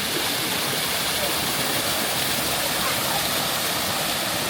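Rushing water of a waterfall on a stream, a steady unbroken roar.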